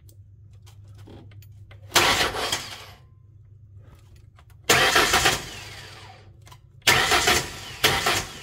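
Ford 3.8 V6 starter motor cranking the engine in four short bursts, each set off by touching the starter solenoid wire to battery power with a screwdriver. Each burst starts suddenly and lasts from under a second to about two seconds.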